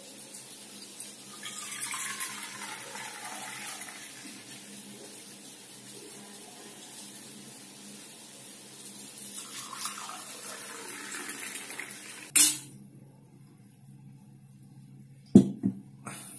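Liquid poured from one stainless steel tumbler into another, splashing for a few seconds starting about a second in with a falling tone, and poured again around ten seconds in. A sharp click a little after twelve seconds, then two knocks near the end.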